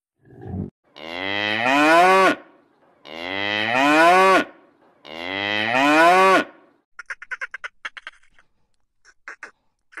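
A cow mooing three times, each call about a second and a half long, rising and then falling in pitch. Near the end comes a quick run of short rapid pulses.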